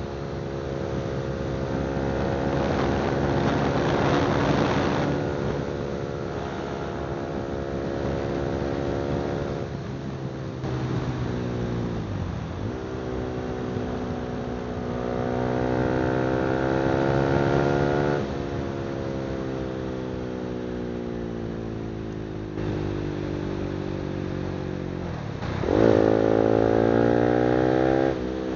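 Honda CBR300R's single-cylinder engine through an aftermarket exhaust pipe, running under way with its pitch rising and falling as the throttle opens and closes. The pitch dips sharply and climbs again about twelve seconds in, and there is a louder rise near the end.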